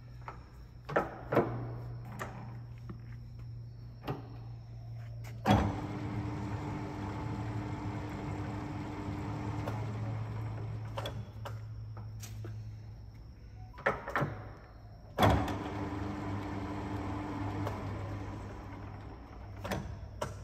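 Charles CH-430 metal lathe running under power: its 5 hp motor hums steadily while the headstock levers are shifted with clicks and clunks. Twice a loud clunk engages the spindle, and the headstock gears run for a few seconds before winding down.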